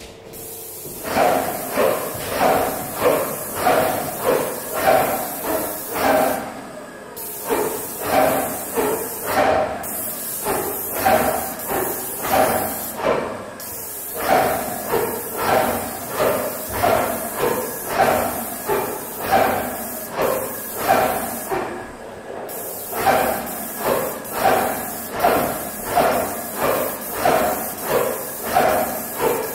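Airless paint sprayer spraying through a 310 fine-finish tip: the hiss of the spray gun over the pump's steady knocking strokes, about two a second. The hiss cuts out briefly several times.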